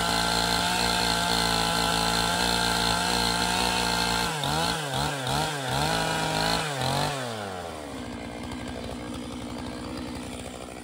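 Stihl MS 881 two-stroke chainsaw running at high speed. About four seconds in, its pitch swings up and down a few times as the throttle is worked. A few seconds later the throttle is let off and it drops to a quieter, lower-speed running.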